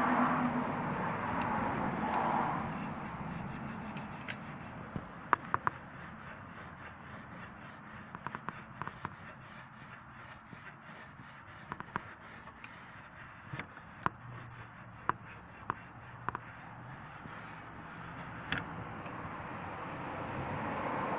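Fine 0000 steel wool scrubbed quickly back and forth over rusty chrome, a fast scratchy rubbing that takes off the rust. A few sharp ticks come through the middle.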